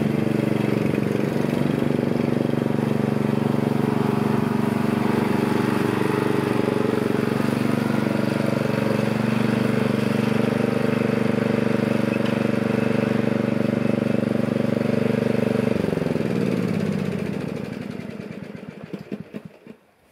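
Small gasoline engine of a walk-behind trail mower running steadily, then shut off about 16 seconds in, its pitch falling as it runs down to a stop.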